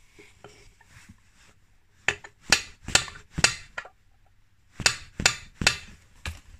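Hammer tapping a frozen main bearing into a heated two-stroke crankcase: two runs of four sharp metallic strikes, about two a second, with a pause between. The note of the blows changes near the end, the sign that the bearing has seated fully in its housing.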